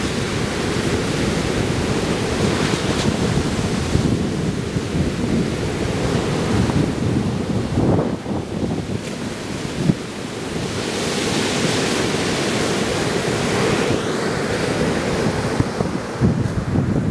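Ocean surf breaking and washing up a sandy beach, with heavy wind rumble on the microphone. A louder wash of surf hiss swells about two-thirds of the way through.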